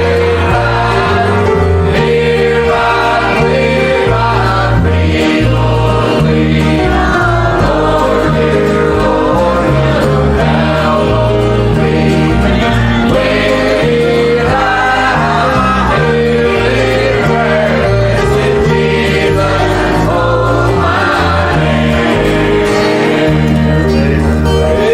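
Congregational or choir gospel singing with instrumental accompaniment and a moving bass line.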